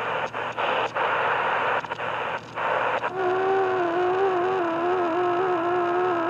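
Shortwave static from a portable radio as it is tuned: hiss that cuts out briefly several times, then about three seconds in a steady, slightly wavering whistle tone with an overtone comes in over the static.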